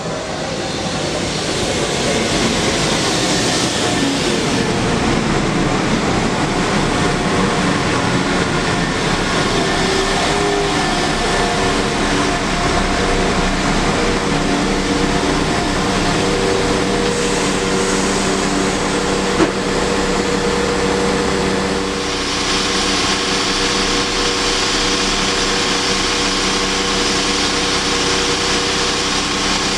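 Class 172 Turbostar diesel multiple unit rolling in along the platform and drawing to a stand, its diesel engines running with a steady hum of several tones. One sharp click about two-thirds of the way in, and a steady hiss joins shortly after.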